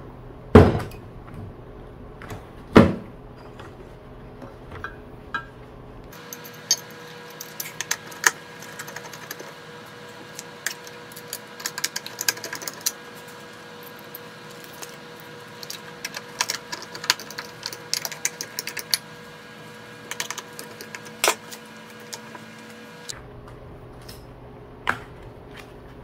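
Handling noise from hands working inside an opened UPS case while foam pads are stuck onto its lead-acid batteries: a couple of sharp knocks near the start, then a long run of small scattered clicks and taps.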